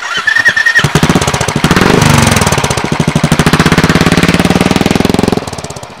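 Royal Enfield Classic single-cylinder engine breathing through a Cobra Premium aftermarket silencer, thumping as the bike pulls away and accelerates. It comes in loud about a second in and fades near the end as the bike moves off.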